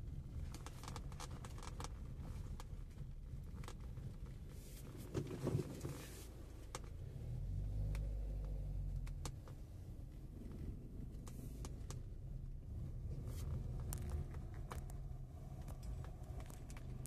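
Steady low vehicle rumble with scattered light clicks and knocks; the rumble swells deeper for a couple of seconds about seven seconds in.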